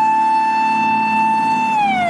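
Japanese fire engine siren wailing, held at a steady high pitch, then starting to fall near the end.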